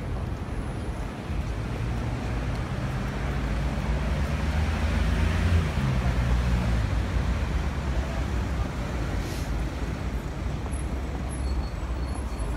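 Busy city street traffic, with a bus engine passing close. It is loudest about five to six seconds in, and its note drops as it goes by.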